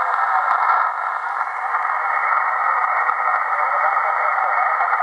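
Shortwave communications receiver playing steady band noise through its speaker: an even hiss with no clear signal, narrowed by the receiver's filter to a thin, mid-pitched band.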